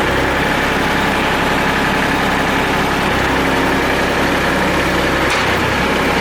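New Holland TC33DA compact tractor's diesel engine running steadily at idle.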